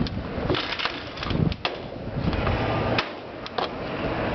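Irregular sharp knocks and clicks from hand work on a sheet-metal double lock seam, over a steady background hiss.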